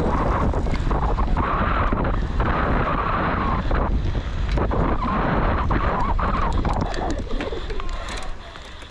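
Wind rushing and buffeting over the microphone of a rider on a cyclocross bike moving at speed, with scattered knocks and rattles over rough ground. The rush eases about eight seconds in.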